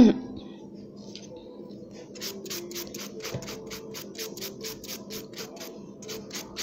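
Hand nail file rasping back and forth over an acrylic nail extension to take off the gel coat, in quick even strokes about four a second, clearest from about two seconds in.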